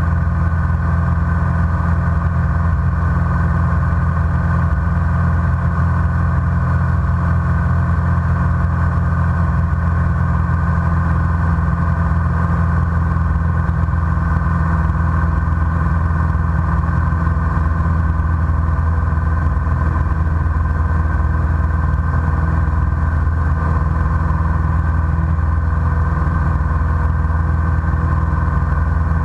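Light single-engine propeller airplane's piston engine and propeller running steadily, heard from inside the cockpit as a constant drone.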